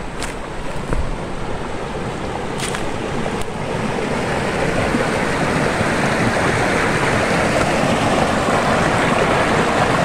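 A small stream rushing and splashing down over rocks in a little cascade, a steady rush that grows louder as it is approached.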